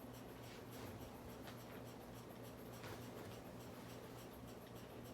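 Harbor Breeze Armitage ceiling fan running on high with a faint, steady low hum from its motor, and a few light ticks.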